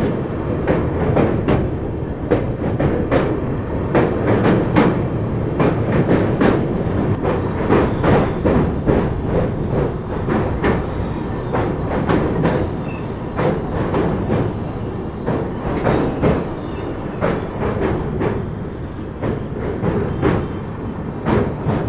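Passenger train running over a steel girder bridge, heard at an open coach door: a steady heavy rumble with a rapid, irregular clatter of wheels over the rails and bridge structure.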